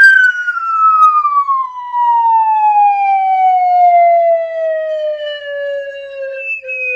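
Sound effect: a single long tone with a siren-like quality, gliding slowly and steadily down in pitch throughout, with a small wobble near the end.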